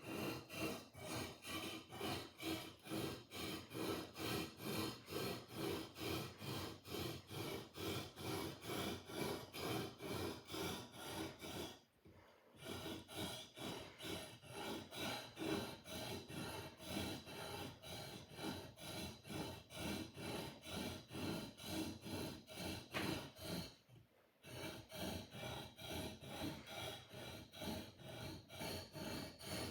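A sword blade being sharpened with fast, even rubbing strokes, about two to three a second, rasping like a file. The strokes break off briefly twice, at about a third and two thirds of the way through.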